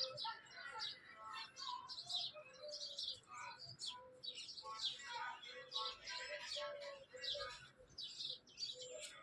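Several birds chirping and calling in quick, overlapping bursts, with some longer, lower notes mixed in.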